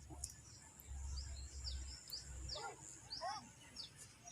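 Small birds chirping again and again, short high chirps that drop in pitch, over a low rumble.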